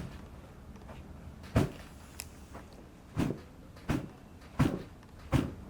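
A series of short knocks and thuds, the last four evenly spaced less than a second apart, from rhythmic pushing on a patient's lower back during a lumbar mobilisation.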